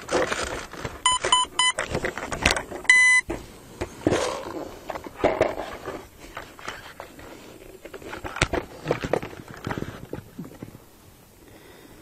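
Short electronic beeps from the RC model's radio gear: a few quick beeps about a second in and a longer beep around three seconds. After that come clicks and rustling as the foam model and its wing wiring are handled.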